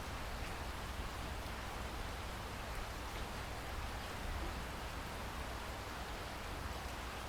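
Steady rainfall: an even hiss of rain with a low rumble underneath.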